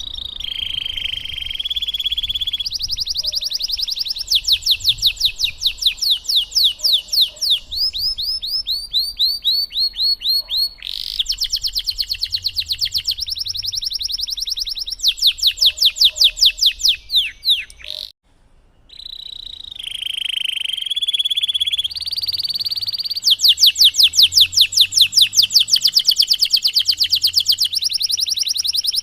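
Domestic canary singing a long rolling song: phrase after phrase of fast repeated trilled notes and chirps, with a brief pause about two-thirds of the way through.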